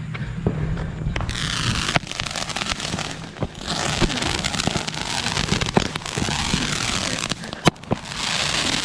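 Roman candles firing: a dense spraying hiss that starts about a second in, with several sharp pops as the burning balls shoot out.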